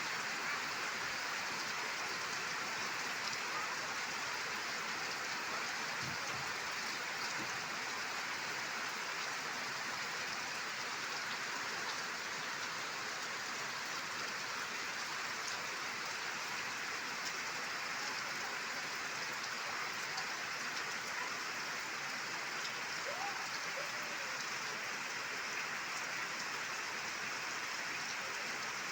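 Steady rain falling, an even patter of drops on surfaces that holds at the same level throughout.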